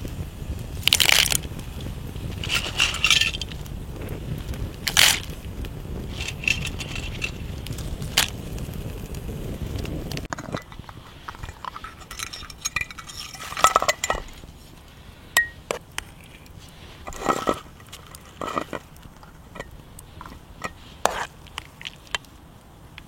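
Scattered clinks, knocks and scrapes of camp cookware and utensils being handled. A low rumble underneath drops away about ten seconds in.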